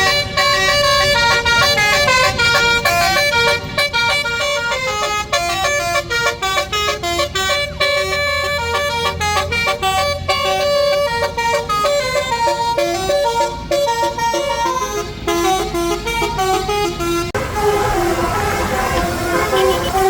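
Bus 'telolet basuri' musical horn playing a fast melody of held and stepping horn notes. The tune changes about seventeen seconds in.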